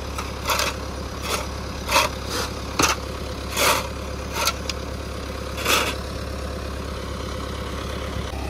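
Heavy vehicle engine idling steadily, with short rushing noises coming irregularly, about one a second, that stop after about six seconds.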